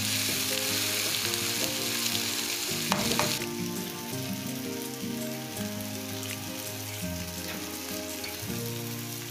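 Minced soya chunks with tomato, onion and green pepper sizzling in an aluminium frying pan while being turned with a silicone spatula. The sizzle is louder for the first three seconds or so, with a single knock just before it eases. Soft background music with sustained notes plays underneath.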